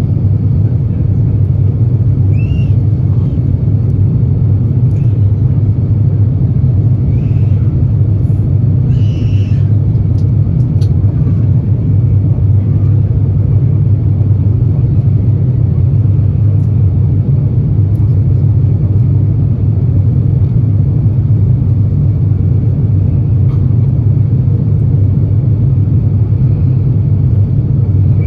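Steady, loud low rumble of engine and airflow noise inside the cabin of an Airbus A350-900 in flight, heard from a window seat beside the wing.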